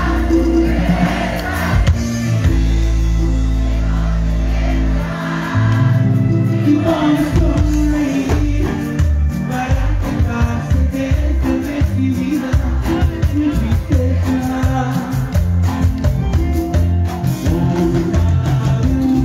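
Live cumbia band music played loud through a stage sound system. Long held bass notes open it, then a steady dance beat comes in about six seconds in.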